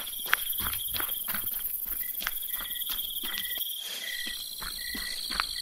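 Crickets trilling steadily in the dark, with quick footsteps through undergrowth in the first half. In the second half a short high note repeats about once a second.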